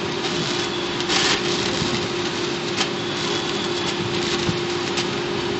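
Continuous band sealer and its conveyor running in a busy plant, as bagged paper-towel packs pass through. A steady hum sits under a machinery din, with a brief louder rush about a second in and a couple of sharp clicks later.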